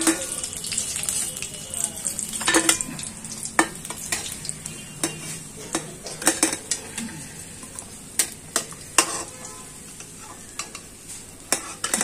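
Hot oil sizzling in a metal kadhai as a metal spatula scrapes and knocks against the pan, lifting out fried stuffed green-chilli pakodas that are done. Many short sharp scrapes and clinks throughout, with the sizzle dying down toward the end as the pan empties.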